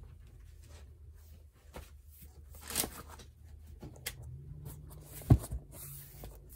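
Handling of a vinyl three-ring binder with plastic sheet protectors: scattered rustles and light taps as it is moved and opened, with one sharp knock about five seconds in, over a low steady hum.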